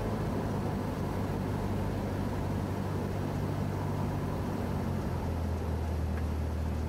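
Cessna 172S's 180 hp four-cylinder Lycoming engine and propeller running steadily, heard in the cockpit, its note dropping a little about five seconds in.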